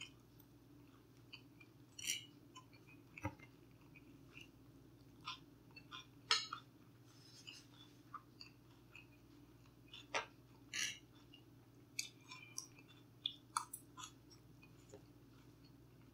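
Close-miked chewing of a mouthful of fried rice, with scattered small clicks and clinks from a fork against the food tray. The sounds are soft and irregular, and one of the louder clicks comes about six seconds in.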